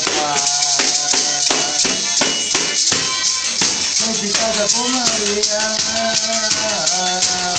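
A man singing, with a maraca shaken in a steady rhythm at about four shakes a second.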